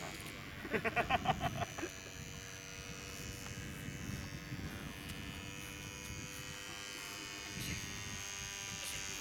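Model airplane motor buzzing steadily, its pitch slowly rising and falling as the plane flies. About a second in, a short run of rapid pulses is louder than the buzz.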